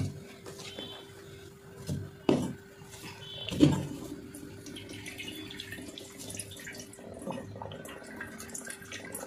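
A steel tumbler of coconut water set down on a plastic-covered table, then a green tender coconut picked up and handled: a few short knocks, the loudest a few seconds in, over a faint steady hum.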